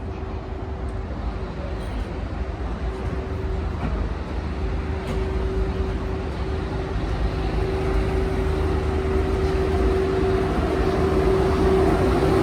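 A train of 205-series cars hauled by an EF81 electric locomotive rumbling along the track, with a steady hum, getting gradually louder as it draws closer.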